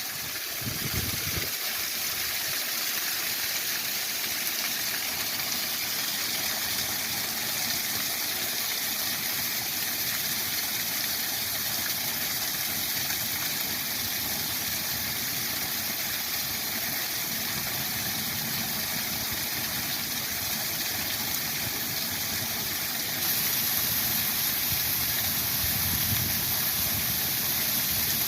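Waterfall rushing steadily, a dense even hiss of falling water. It gets a little louder and brighter near the end.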